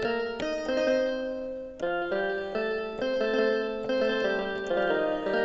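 M Studio MS41 mini electronic keyboard playing a melody with chords on its banjo preset (voice 95). The notes have sharp plucked attacks and change about every half second.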